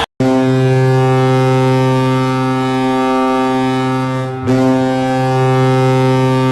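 Colorado Avalanche arena goal horn sounding a long, loud, low steady blast. It dips briefly about four and a half seconds in and starts again.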